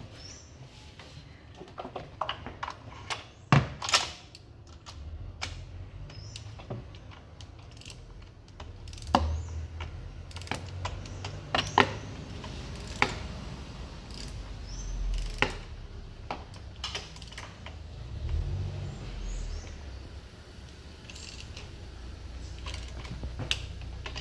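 Ratchet and torque wrench clicking irregularly as spark plugs are screwed in and torqued, with a few louder single clicks. A faint low rumble runs underneath for much of the time.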